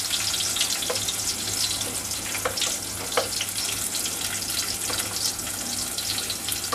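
Sliced onions sizzling steadily in hot ghee and oil with whole spices, with three light clicks of a wooden spatula against the plate and pot in the first few seconds.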